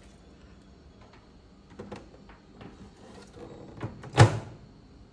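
A few light knocks and clicks, then the Samsung MG23A3515 microwave oven's door shut with one loud, sharp clunk about four seconds in.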